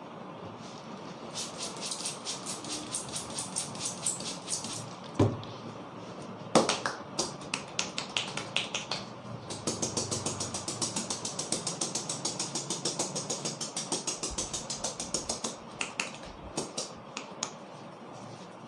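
A barber's hands rapidly slapping and tapping on a customer's head in a percussive head massage, in fast even runs of several strikes a second. Two single louder smacks fall between the runs, and a few scattered taps come near the end.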